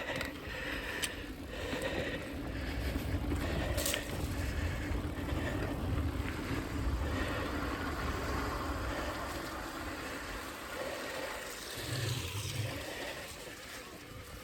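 Mountain bike rolling along a dirt trail: tyres crunching and scraping over the ground, with a couple of sharp clicks from the bike about a second in and again near four seconds.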